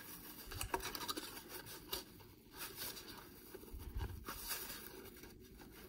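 Faint handling sounds of a rubber-strapped watch being turned over in the hands: scattered light taps, scrapes and a few soft thumps.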